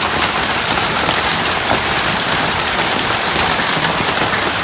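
Large hailstones and heavy rain pelting down in a steady dense roar, with scattered sharper hits throughout.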